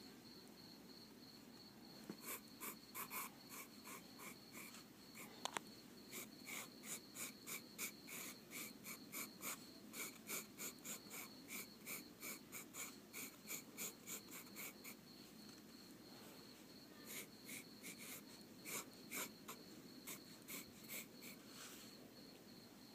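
Faint, quick drawing strokes scratching on paper, about two a second, with a short pause about two thirds of the way through, over a faint steady high whine.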